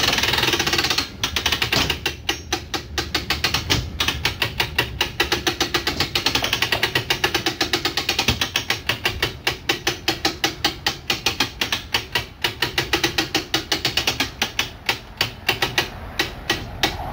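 Pop-top camper roof winch being hand-cranked to raise the roof, its ratchet pawl clicking in a rapid, even run. For about the first second the clicks run together into a continuous rattle.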